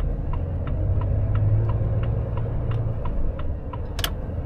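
Volvo FH460 truck's six-cylinder diesel running at low speed, heard in the cab, with the turn-signal indicator ticking about three times a second. A sharper click comes about four seconds in.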